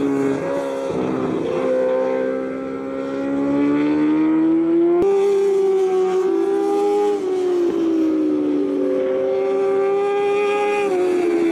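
J-GP2 racing motorcycle engines at high revs through a corner, one bike after another. The engine note dips and jumps about a second in, then climbs steadily as the bike drives out. A second bike takes over about halfway through, its note rising and then falling sharply near the end.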